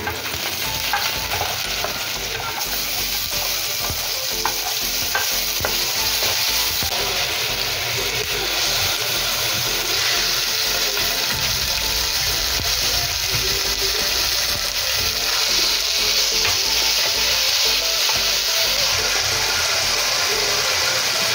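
Minced garlic, then ground beef, sizzling as it fries in oil in a pan. The sizzle grows louder about nine seconds in, when the beef goes in, and stays loud.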